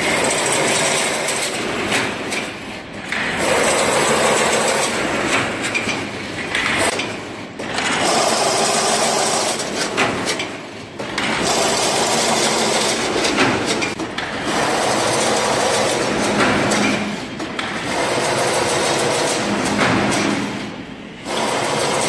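Chain link fence machine running: a continuous loud mechanical noise that drops briefly about every three and a half seconds, in a repeating working cycle.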